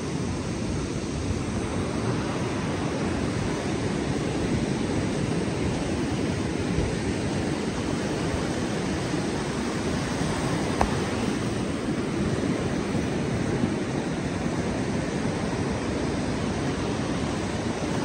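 Ocean surf breaking, mixed with wind rumbling on the microphone: a steady, unbroken noise. One small tap about eleven seconds in.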